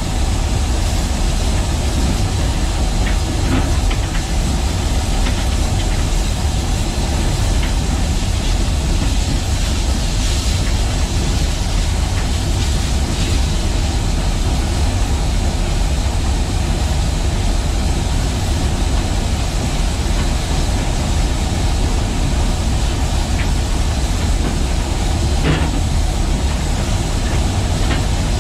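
Steady rumble and hiss of steam locomotive Southern 4501, a 2-8-2 Mikado, heard from inside its cab while it runs, with one light knock near the end.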